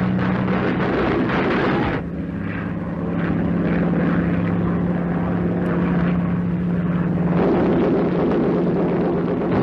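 Biplane engine and propeller droning steadily at one pitch. A denser, rougher noise lies over it for the first two seconds and again from about seven and a half seconds in.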